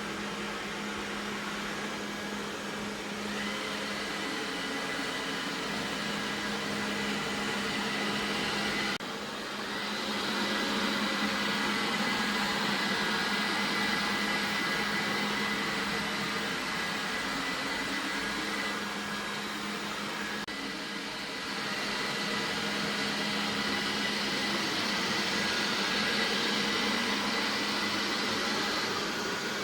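Vacuum cleaner running steadily: a motor hum with a thin high whine over a wide rush of air noise. It dips briefly twice, about nine and twenty-one seconds in.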